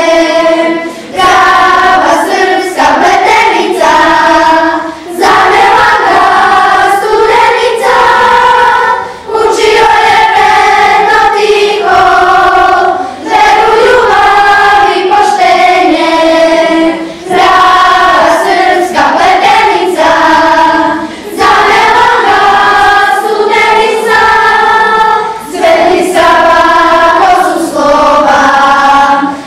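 Children's choir singing together, in sung phrases separated by short breaths every few seconds.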